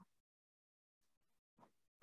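Near silence: the audio is gated down to nothing, with only a faint, brief sound about one and a half seconds in.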